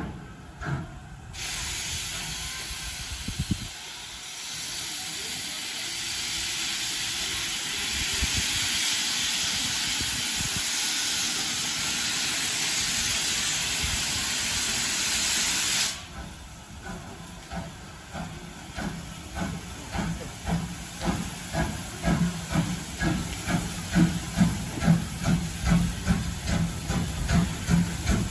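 JNR C12-class 2-6-2 tank steam locomotive pulling away with its cylinder drain cocks open: a loud, steady steam hiss that cuts off suddenly about halfway through. Then the exhaust chuffs about twice a second, growing louder as the engine approaches.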